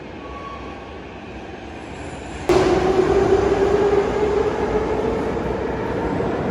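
A Kyiv Metro train running at the station: steady station noise turns suddenly loud about two and a half seconds in, with a strong whine that slowly falls in pitch.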